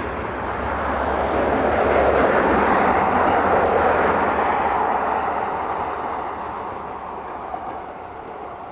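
Passenger train running along the track, a steady rolling rumble of its coaches that swells about two to four seconds in, then fades as the train moves away out of sight.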